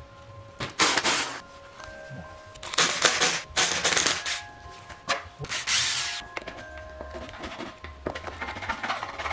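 Cordless drill-driver running in four short bursts on the gearhead of a STIHL FS56 trimmer, undoing its fasteners, over bright electronic background music.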